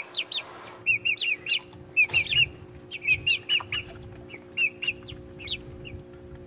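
Young chicks peeping: short, high chirps in quick runs of two to four, repeated throughout.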